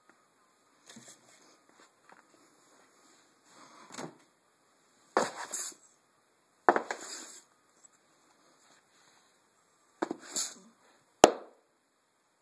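Handling noise from a phone held close to the floor: a few short rustling, scuffing bursts spaced a second or more apart, and one sharp click near the end.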